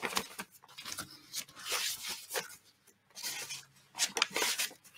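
Sheets of coffee-dyed paper being handled and slid against one another: a string of short, irregular rustles and scrapes.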